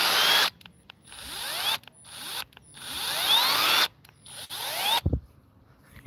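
Electric drill run in four short bursts, its motor whining up in pitch each time, with a low thump about five seconds in.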